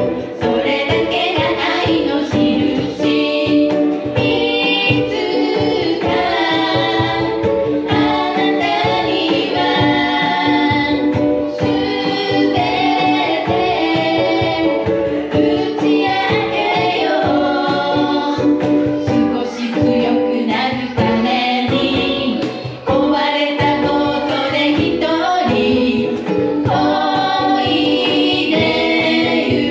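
Ukulele trio strumming and singing a pop song together live, several voices in harmony over steady strummed chords.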